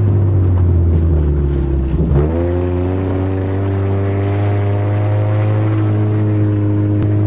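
Automatic Honda's engine running under way, steady; about two seconds in its speed dips briefly, then settles and holds at a new steady pitch.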